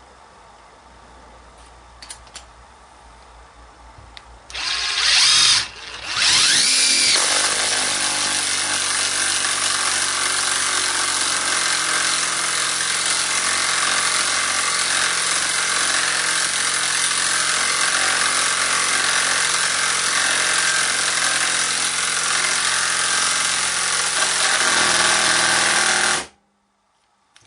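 Festool TI 15 cordless impact driver hammering a long, thick wood screw into stacked 2x4s: a short burst about four and a half seconds in, a brief pause, then about twenty seconds of continuous impacting that cuts off suddenly. The screw proves too much for the TI-15.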